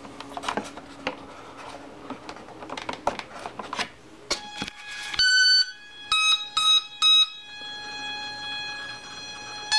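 Light handling clicks and rustles, then the electronic start-up beeps of an RC plane's speed controller as the flight battery is plugged in: two held tones, three short beeps, then a steady tone.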